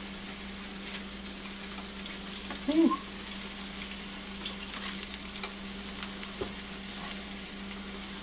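Rib eye steak sizzling and crackling in its juices inside foil on a George Foreman contact grill, over a steady low hum. A short rising squeak comes a little under three seconds in.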